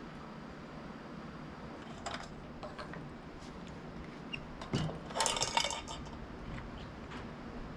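Tableware being handled: a few light clicks and knocks, then a short flurry of clinking about five seconds in.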